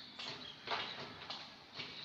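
Faint, scratchy rustles of cotton yarn being drawn through with a crochet hook as stitches are worked, about four short strokes.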